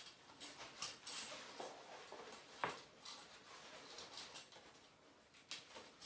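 Faint rustling of a fabric shower curtain liner and a few light clicks of metal shower curtain hooks as the liner's buttonholes are hung on them, the sharpest click a little under three seconds in.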